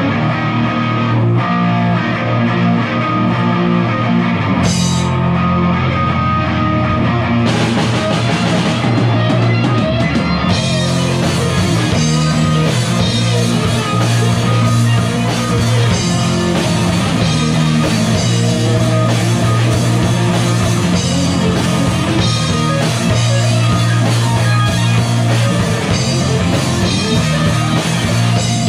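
Rock band playing live: two electric guitars and an electric bass, with the drum kit's cymbals and drums coming in fully about seven seconds in. Instrumental, with no singing.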